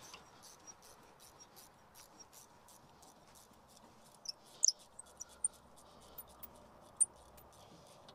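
Hand ratchet clicking in a quick, even run of faint ticks, about three or four a second, as the hub bolts are backed out, with a few sharper, louder ticks about halfway through.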